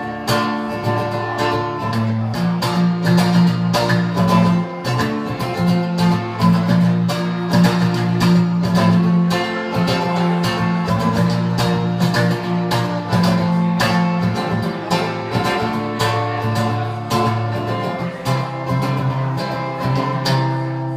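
Acoustic guitar strummed in a steady rhythm, an instrumental break in a song with no singing.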